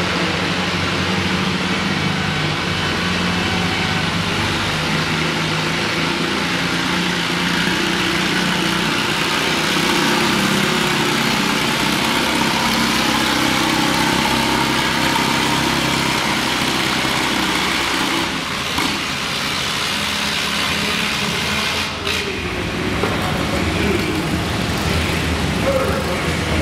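Vintage Massey-Harris tractor engine running steadily under load, pulling a weight-transfer sled slowly down a dirt track.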